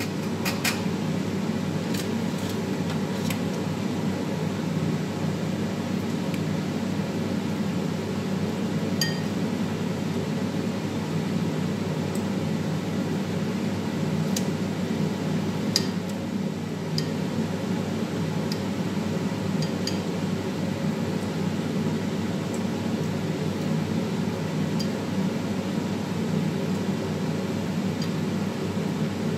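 Scattered light clinks of a utensil against a ceramic bowl and a metal tray as marinade is brushed onto chicken, over a steady fan hum.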